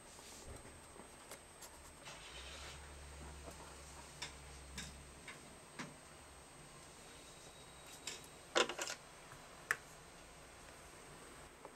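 Faint, scattered light clicks and taps, with a quick cluster of louder ones about three-quarters of the way through and a faint low hum for a few seconds near the start.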